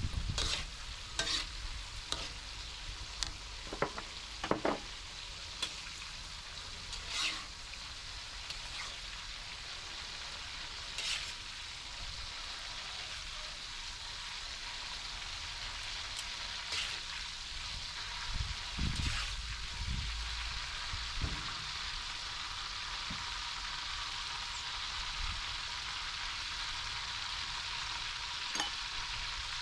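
Food frying in a pan with a steady sizzle, stirred now and then with a utensil that scrapes and taps the pan, most often in the first half, with a few low knocks later on.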